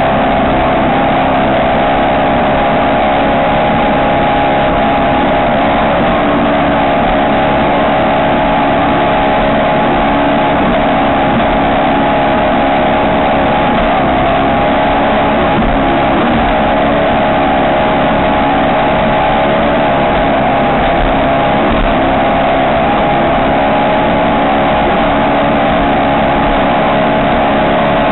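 Ski race boat's engine running at steady revs: a loud, constant note with no rise or fall in pitch.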